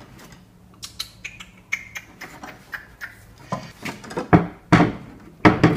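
A long screwdriver working inside a plastic marine fuel tank: scattered light clicks, then a run of louder knocks and clanks in the second half as it pushes a fitting into place.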